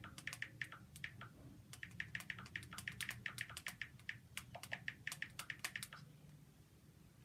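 Quick, faint clicking taps of a text message being typed on a smartphone touchscreen, in short runs of several taps a second that stop about six seconds in.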